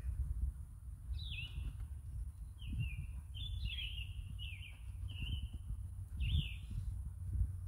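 A songbird singing: a run of about eight short, falling whistled notes, roughly one every two-thirds of a second, over a steady low rumble.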